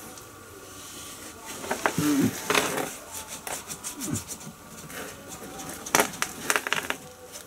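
Paintbrush scrubbing and dabbing anti-corrosion compound onto the rusty lower seam of a car door: irregular scratchy strokes, with a cluster of sharp clicks about six seconds in.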